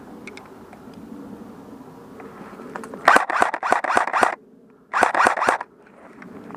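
Airsoft gun firing two quick strings of shots, about six and then about four, roughly five shots a second, with a short pause between them.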